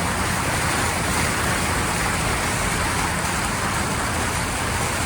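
Steady, even rushing noise of water, with no change in level.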